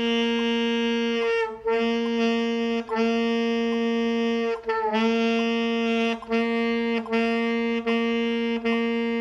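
Saxophone playing written G over and over, each note tongued: a few long held notes, then shorter ones in a steady pulse.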